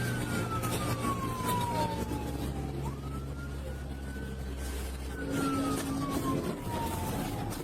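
Police car siren wailing, its pitch sweeping slowly up and down about every five seconds, over the steady running of the pursuing cruiser's engine and road noise at pursuit speed.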